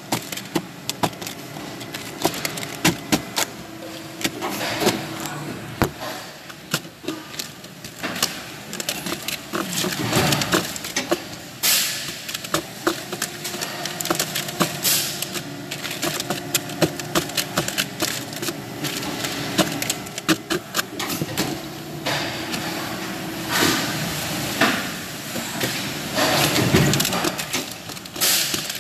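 Gloved hands handling and stacking hard plastic parts on a workbench: many irregular clicks, clacks and knocks, with a few heavier thuds, over a steady low machine hum from the factory.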